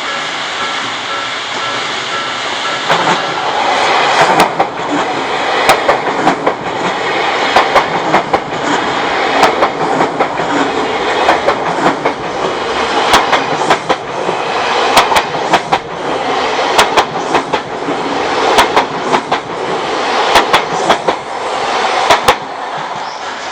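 Odakyu 3000 series electric train passing over a level crossing, its wheels clacking in quick groups over the rail joints as the cars go by. The crossing's warning bell rings at first; the train's rush comes in about three seconds in and the clacking stops shortly before the end.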